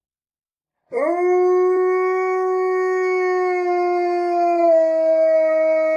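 A dog howling: one long, steady howl that starts about a second in with a quick upward slide in pitch and steps slightly lower near the end.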